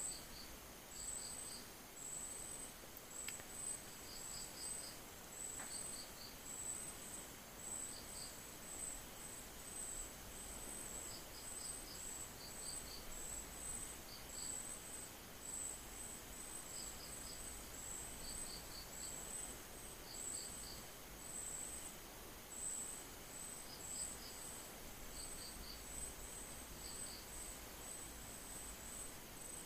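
Crickets chirping: a fast, almost unbroken high-pitched chirping, with groups of three or four lower chirps repeating every second or two.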